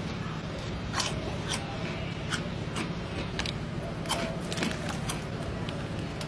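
Crunchy spicy snack chips such as Takis and Flaming Hot Doritos being handled and bitten: irregular short crunches and crackles, roughly one every half second, over a low steady hum.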